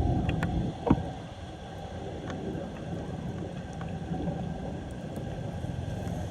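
Floodwater draining through an unclogged street storm drain with a low, steady rushing, and a sharp knock about a second in, after which the rushing is a little quieter.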